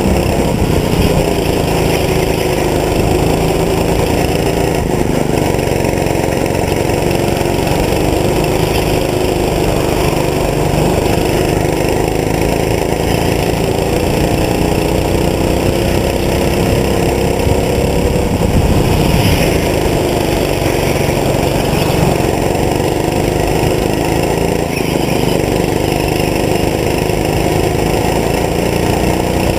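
Go-kart engine heard up close from the driver's seat, running hard around a track; its pitch climbs and falls again and again as the driver accelerates out of corners and lifts into the next.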